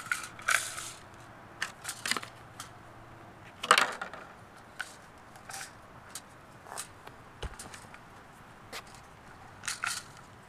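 Irregular crinkles, rustles and light clicks of plastic packaging and a hard-plastic Nerf Rival magazine being handled. The loudest crackles come about half a second in and just before four seconds in.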